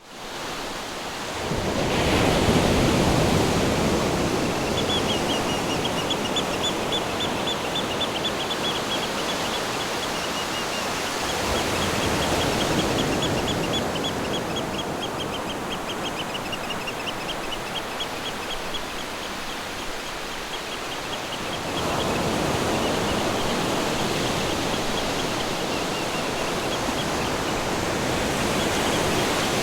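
Ocean surf breaking on a beach: a steady rush that swells as a wave comes in about every ten seconds. A high, rapid chirping runs over it from a few seconds in.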